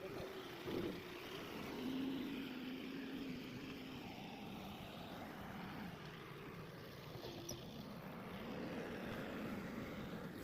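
Diesel engine of a Mahindra backhoe loader running steadily, its pitch wavering slightly.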